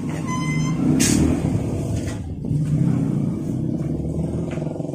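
A motor vehicle engine running close by, its rumble swelling about a second in and again near the three-second mark, with a brief high tone near the start.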